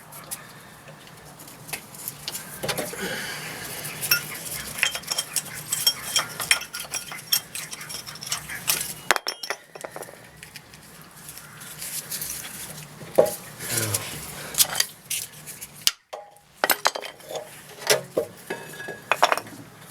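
Irregular metallic clinks and scrapes as worn rear brake pads and their fittings are worked out of a disc brake caliper carrier.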